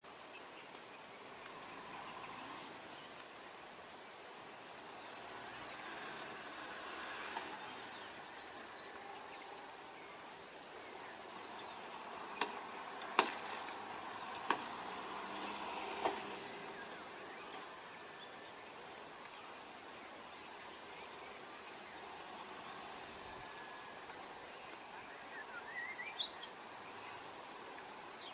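Steady high-pitched drone of insects in the forest, with four sharp clicks or knocks close together about halfway through.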